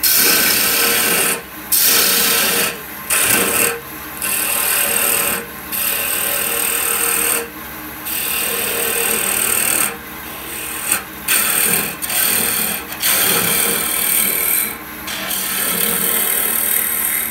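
A turning tool cutting a spinning wooden goblet blank on a lathe, a loud hissing scrape. It comes in spells of one to two seconds, broken by about ten brief gaps where the tool comes off the wood.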